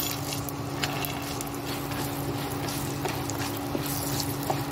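Hot oil sizzling in a nonstick kadhai as roasted peanuts, dal and coconut slices are tipped into the tempering and stirred, with small clicks of nuts and spatula, most of them in the first second. A steady low hum runs underneath.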